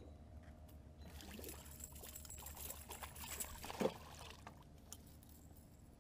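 A gar splashing and thrashing at the water surface beside the boat while it is unhooked over the side, for about three seconds, with the loudest splash about four seconds in as it drops free into the water.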